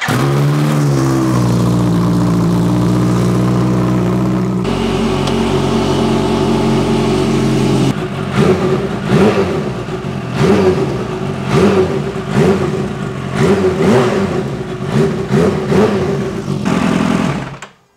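Kawasaki Ninja H2's supercharged inline-four engine catching on the starter and idling, the idle settling lower over the first couple of seconds. From about eight seconds in, the throttle is blipped in a rapid string of short revs. The engine is switched off near the end.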